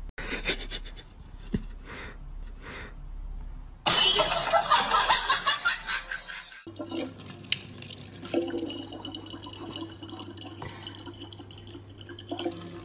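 A thin stream of water from a tap pouring steadily into a large plastic water bottle, with a low steady hum underneath, starting about seven seconds in. Before it, a loud noisy burst lasting about three seconds stands out.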